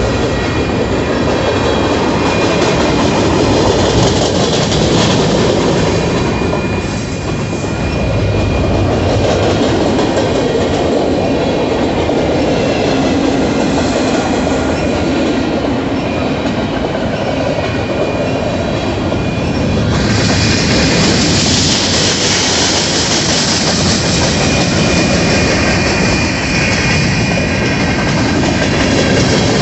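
Union Pacific freight train of covered hopper cars passing steadily, its wheels rumbling over the rails with thin high ringing tones above. A brighter hiss comes in about two-thirds of the way through.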